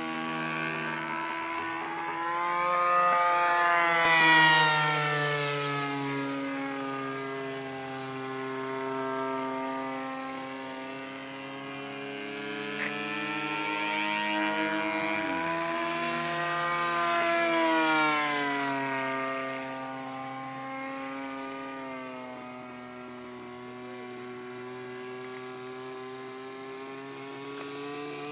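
PAW .19 model diesel engine on a Simplex radio-control model plane running steadily in flight, a buzzing note whose pitch rises and then falls with each pass. It is loudest about four seconds in and again near eighteen seconds.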